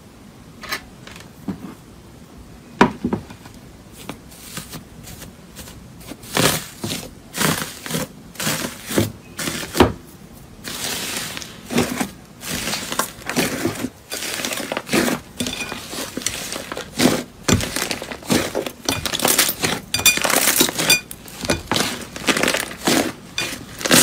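Slime covered in a layer of thin metallic foil being pressed and kneaded by hand. The foil crinkles and crackles, with sharp pops and clicks. These are scattered at first and grow dense and nearly continuous after the first several seconds.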